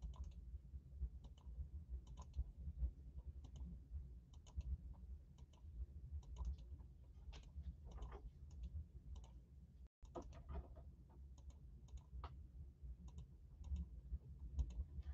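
Faint, irregular clicking of a computer keyboard and mouse being worked, over a low steady hum.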